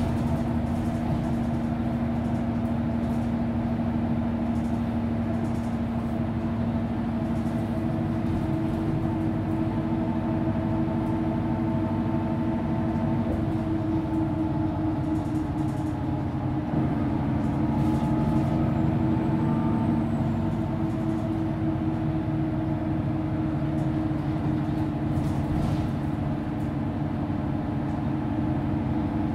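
A 2004 Mercedes-Benz Citaro city bus driving, heard from on board: its diesel engine and drivetrain drone steadily with a couple of held tones. About halfway through the note shifts and gets slightly louder for a few seconds, with light rattles throughout.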